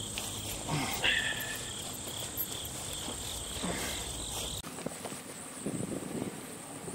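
Insects singing outdoors: a steady, high-pitched trill. A low background rumble underneath cuts off abruptly about two-thirds of the way through.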